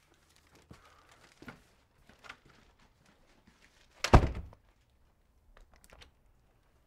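A door slamming shut once, a single heavy thud about four seconds in, with a few faint knocks before it.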